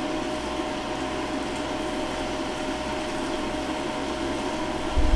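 Steady hum of a running air fryer's fan, with one constant thin whine over an even whoosh. A low bump comes near the end.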